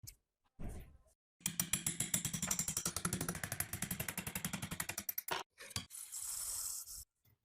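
Rapid mechanical ratcheting clicks, about fifteen a second, run for about four seconds, followed by two single clicks and a short hiss near the end.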